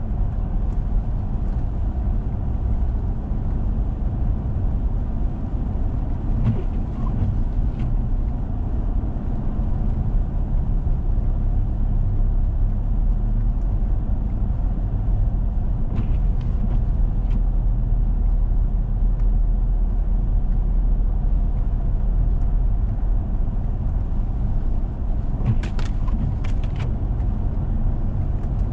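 Steady low rumble of a four-wheel-drive vehicle driving on a snowy road: engine and tyre noise heard from inside, with three small clusters of brief clicks spread through the stretch.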